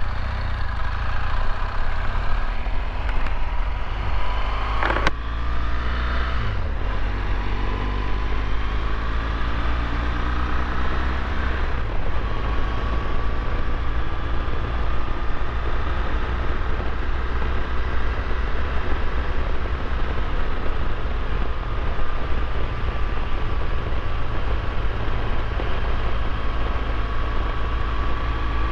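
BMW R1200GS boxer-twin motorcycle engine accelerating through the gears. Its pitch climbs, drops at shifts about five and twelve seconds in, then holds a steady cruise that rises slowly, over a heavy low rumble of wind noise.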